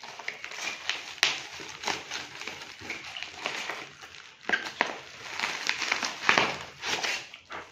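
Cardboard wrapping being torn open and polystyrene foam packing broken and crunched by hand, in irregular bursts of crackling with sharp snaps.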